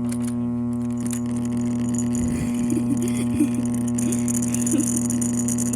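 Vintage alarm clock radio's speaker giving out a steady, buzzy electrical hum, low and strong with many higher overtones, over a thin hiss.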